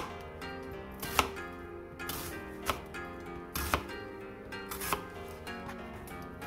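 A chef's knife cutting through onion, and carrot by the end, down onto a plastic cutting board: sharp, separate knocks about every second or so, over soft background music.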